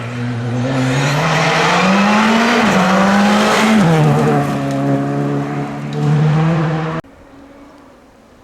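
Four-cylinder rally car engine under hard acceleration. Its pitch climbs, drops once at an upshift about four seconds in, then holds high. The sound cuts off suddenly about seven seconds in.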